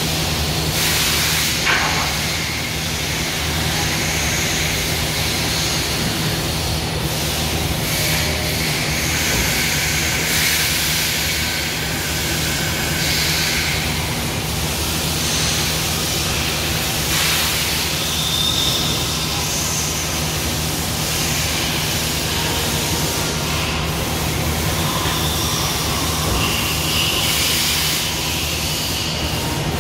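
Okuma Multus B200II W CNC multitasking lathe running through a program sequence: a steady machine hum and hiss, with short high-pitched whines that come and go every few seconds.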